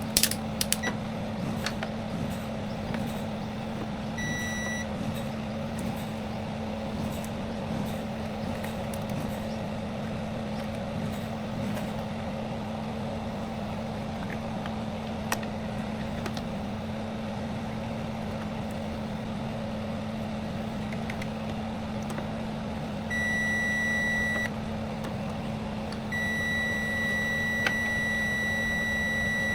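Electronic beeps at one steady high pitch: a short beep about four seconds in, a longer one later, then a tone held for several seconds near the end, over a steady low hum.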